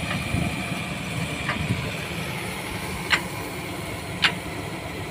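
A diesel engine idling steadily, with a few short sharp clicks as the pile hammer's fuel injection pump is worked by hand by its rope, squirting diesel from the injector.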